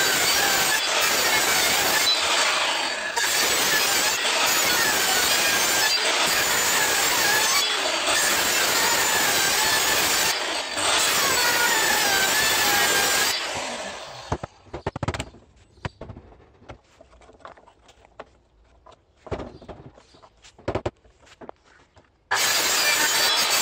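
DeWalt circular saw running and cutting through pallet wood, its whine wavering under load. About two-thirds of the way through the cutting stops and the saw dies away, leaving a quieter stretch of scattered knocks and clunks. Near the end the saw starts cutting again abruptly at full loudness.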